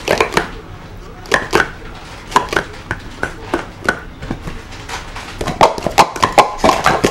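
Plastic sport-stacking cups clacking against each other and the mat as a 3-3-3 is stacked: separate taps at first, then a quick run of clatters from about two-thirds of the way through.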